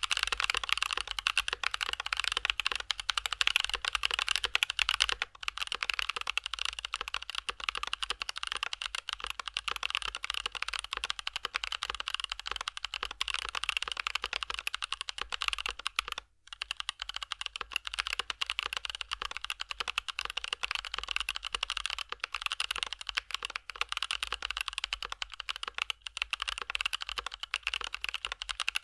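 Fast, continuous typing on a mechanical keyboard with Gazzew Boba U4T tactile "thocky" switches, mounted on the integrated aluminium plate of a foam-dampened Tokyo60 v4 case. The keystrokes fall in a dense stream and break off briefly about five seconds in, then for a moment again just past the middle.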